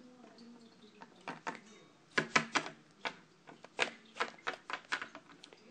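Irregular light clicks and taps of small plastic Littlest Pet Shop figurines being moved and knocked on a hard floor, with the loudest cluster of taps about two seconds in.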